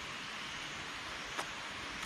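Mouth and hand noise of someone eating roasted meat: a single short crunch or click about one and a half seconds in. Beneath it runs a steady, even hiss of forest background.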